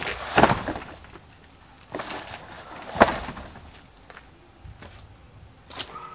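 Corrugated roofing sheet being handled and laid onto a woodpile's roof: a few separate knocks and rattles as the sheet flexes and is set down, the sharpest about three seconds in.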